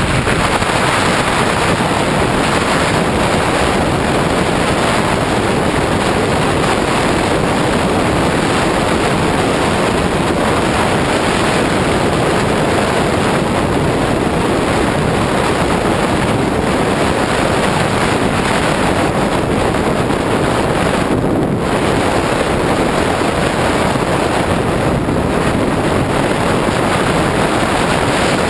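Loud, steady wind rush on the microphone of a camera riding on a moving KTM 690 Duke R motorcycle on a gravel road, with the bike's running noise mixed into it.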